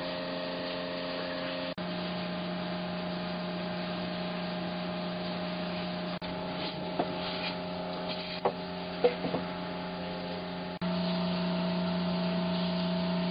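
A steady mechanical hum from a running motor, with a few light clicks and knocks in the middle. The hum gets somewhat louder about 11 seconds in.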